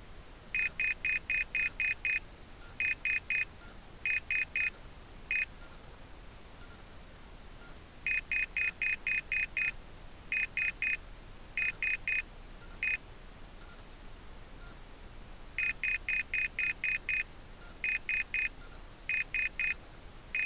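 Rocket altimeter beeping out its recorded peak altitude after landing: groups of seven, three, three and one short high-pitched beeps, reading 7,331 feet. The sequence repeats about every seven to eight seconds, three times over.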